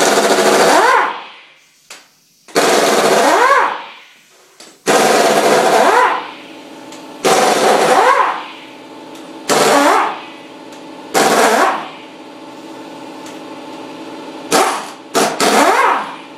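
Pneumatic impact wrench hammering in about nine bursts, mostly around a second each, its pitch rising within each burst as it breaks loose the cylinder head bolts on a Ford 289 V8. The last three bursts are short and quick together. A steady machine hum runs behind from about five seconds in.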